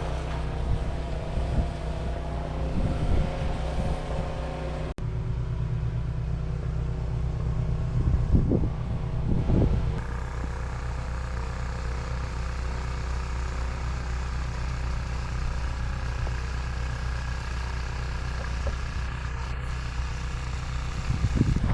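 A steady low engine drone, like a vehicle running, that changes abruptly twice as the footage cuts, with a few short louder rumbles in the middle.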